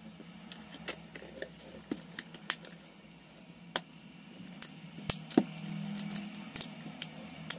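Scattered light clicks and taps from a smartphone and small parts being handled on a silicone repair mat, with one sharper knock about five seconds in, over a low steady hum.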